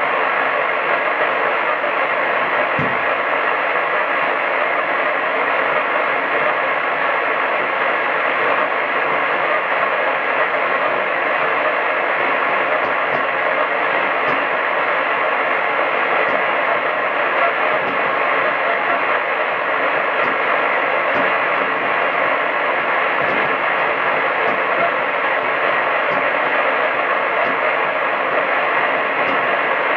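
Steady hiss from a medium-wave (AM) radio receiver, cut off sharply at the top like a narrow radio channel, with no programme audible.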